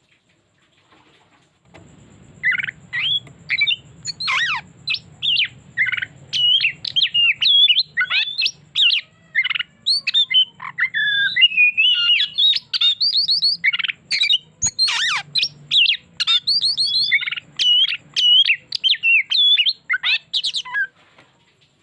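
An Oriental magpie-robin (kacer) singing a long, fast-changing song of chirps, trills and whistled phrases, packed with mimicked notes (its 'isian' fills). The song starts about two seconds in and runs almost to the end, over a faint low hum, with one sharp click about fifteen seconds in.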